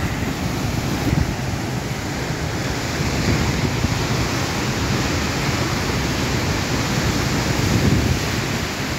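Sea surf breaking and washing over rocks, a steady noise, with wind buffeting the microphone.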